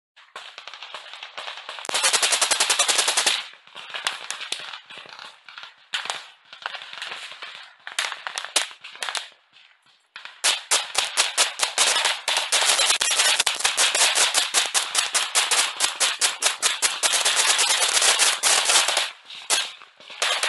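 Automatic small-arms fire at close range. A dense burst comes about two seconds in, then scattered shots, a short lull about halfway, and then nearly continuous rapid fire for most of the second half.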